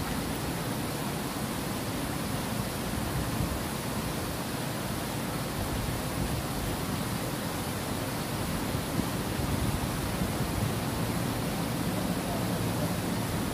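Water spilling over a low weir into a channel: a steady, even rushing.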